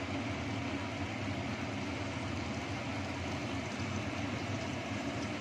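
Kitchen cooker hood extractor fan running steadily: an even whooshing with a low hum underneath.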